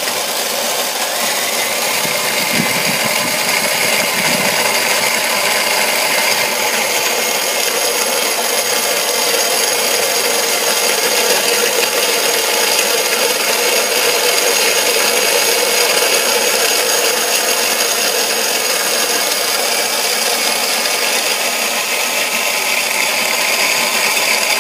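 Cordless drill spinning a cast-iron Victoria (Corona-style) grain mill, grinding brewing grain through the burrs: a steady motor whine over continuous grinding and rattling.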